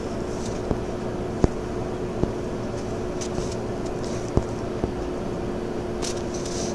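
Fingertip taps on a phone touchscreen, about five sharp clicks a second or so apart, over a steady background hum.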